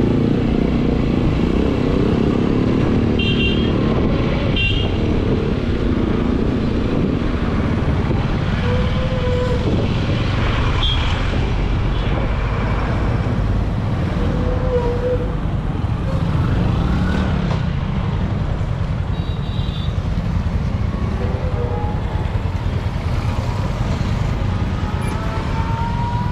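Steady motor-vehicle and road-traffic rumble, with two short high horn beeps about three and five seconds in.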